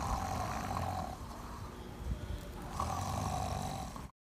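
People snoring with open mouths, two long rasping snores about three seconds apart; the sound cuts out abruptly just before the end.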